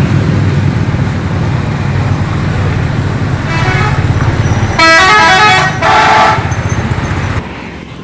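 Bus 'telolet' musical horn playing quick runs of changing notes, loudest in two bursts about five seconds in, with a fainter run just before. Under it is the steady rumble of road traffic and motorcycle engines.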